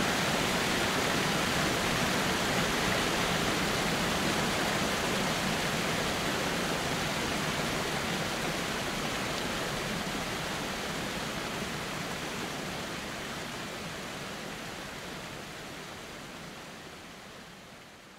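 Steady rushing of a large waterfall, water pouring and churning with no break, fading out over the last few seconds.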